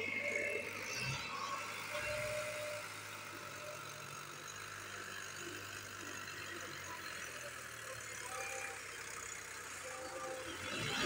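Diesel tractor engine running steadily with a low hum.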